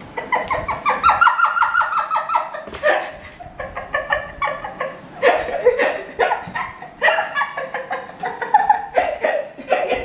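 People laughing in rapid, repeated ha-ha bursts, in several bouts with short breaks between them.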